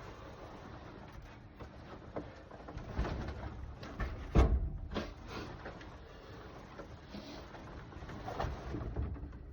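Knocks, bumps and scrapes of hunting gear being handled and set up inside a small wooden shooting shack, with the loudest thump about four and a half seconds in.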